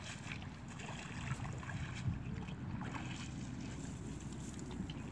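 Wind rumbling on the microphone, a steady low buffeting with faint scattered ticks over it.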